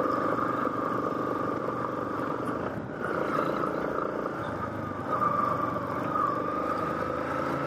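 Adventure motorcycle engine running steadily while riding a dirt road, heard from a handlebar-mounted camera, with a steady high whine over the engine note that wavers briefly about two-thirds of the way in.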